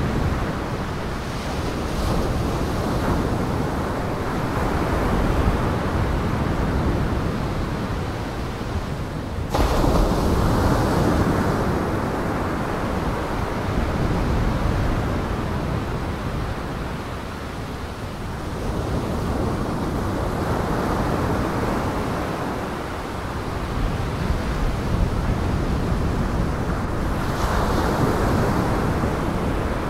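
Rough storm surf breaking and washing with wind. It is a dense rush that swells and eases every few seconds and turns abruptly louder about ten seconds in.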